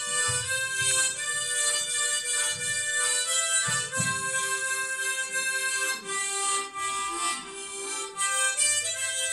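Two harmonicas playing a Christian hymn tune together, chords and held notes moving from one to the next, one note held for about two seconds near the middle.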